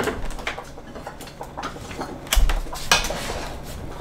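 Shishito peppers blistering in a hot pan, popping and crackling at irregular intervals, with a louder knock about two and a half seconds in.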